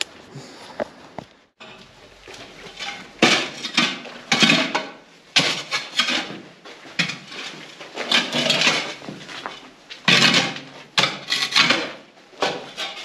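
Loose rubble and scrap clattering and scraping as it is moved about, in irregular bursts with short pauses between them.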